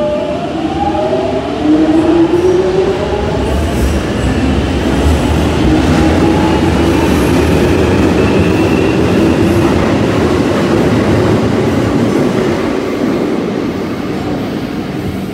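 London Underground 1996 Tube Stock train pulling out of the platform: a rising electric whine as it starts off, then loud steady wheel and running noise as it gathers speed, easing off near the end as the last car leaves.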